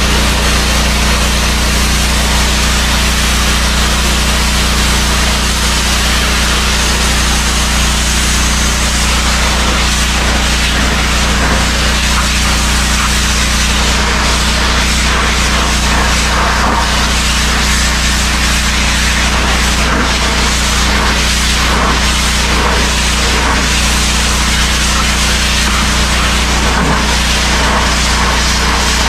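Pressure washer running steadily, its high-pressure water jet hissing against corrugated metal shed siding as it strips moss and grime, over the steady hum of the machine.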